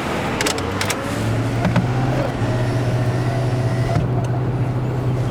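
Car driving, heard from inside the cabin: steady engine and road hum, with a few sharp clicks in the first second.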